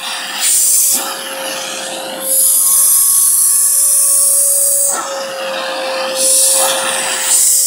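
Vacuum cleaner running with a steady motor whine while its hose nozzle is worked over a cat's fur; the rush of suction air swells and drops several times as the nozzle presses into the fur and lifts off.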